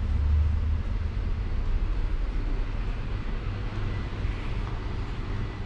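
Steady low rumble with a faint high hum: the background noise of a small restaurant, with ceiling air conditioning and fans running.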